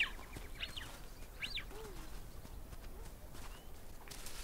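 Gelada baboons calling: short high yelps that rise and fall in pitch, three in the first second and a half, then a fainter, lower one.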